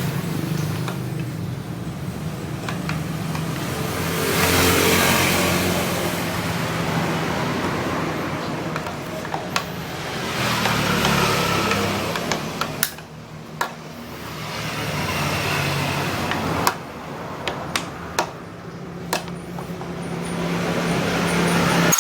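Honda Vario Techno 110 scooter's single-cylinder four-stroke engine running, swelling and falling back a few times as the throttle is opened and released. Sharp clicks and taps sound here and there.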